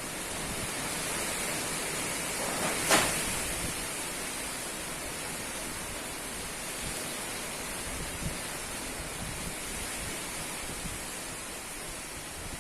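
Strong wind blowing in a steady rushing noise, with one sharp knock about three seconds in and a fainter tick later.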